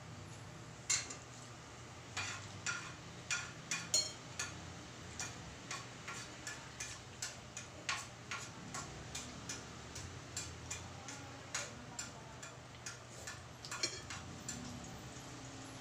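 Spoon and fork clinking against a ceramic plate while eating: an irregular run of light clicks, about two or three a second, over a low steady hum.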